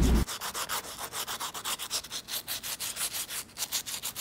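Wet/dry sandpaper rubbed back and forth by hand over a wet stone sculpture: a quick, even rasping at about five strokes a second. This is wet sanding of the stone to remove its tool marks.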